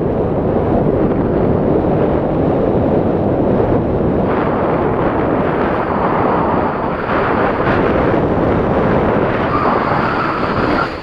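Strong wind buffeting the microphone: a steady, loud rush of air with a deep rumble, easing off sharply at the very end.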